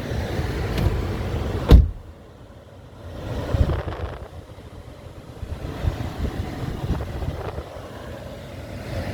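A Toyota Corolla sedan's door shutting with one loud thud about two seconds in, between rustling and handling noises and low rumbling inside the car.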